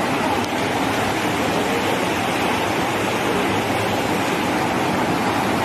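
Steady rush of fast-flowing floodwater, a river in spate.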